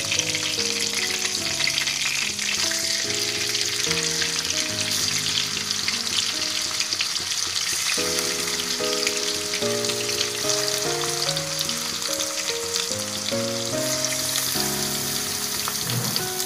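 Whole prawns frying in hot mustard oil in a kadai: a steady sizzle, with a soft background melody underneath.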